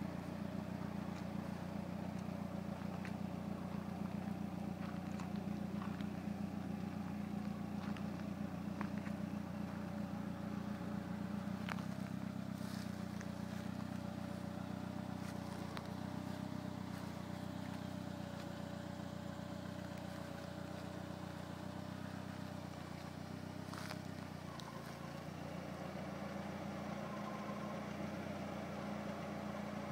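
Lancia Delta HF Integrale Evo II's turbocharged four-cylinder engine idling steadily.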